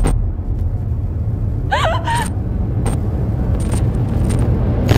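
Horror trailer sound design: a low rumbling drone, broken several times by short crackles of static, with a brief wavering cry about two seconds in.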